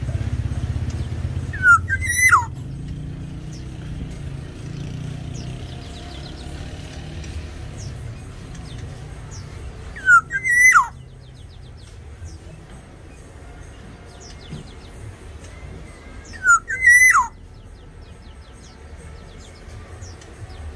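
Black-naped oriole (the Sumbawa race, kepodang sumbawa) whistling three times, about two, ten and seventeen seconds in. Each call is a loud whistled phrase that rises and then slides steeply down in pitch. A low rumble runs underneath and fades after the first few seconds.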